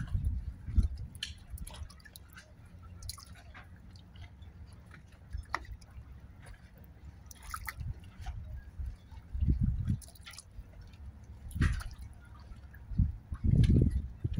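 Sea water lapping and dripping against a boat's hull, with scattered small splashes and drip sounds. A few dull low rumbles come in the second half.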